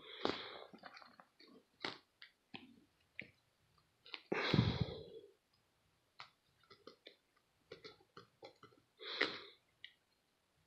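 Faint handling noise from cardboard coin holders being moved and shifted by hand: scattered small clicks and taps, with three short louder rustles, one near the start, one about halfway and one near the end.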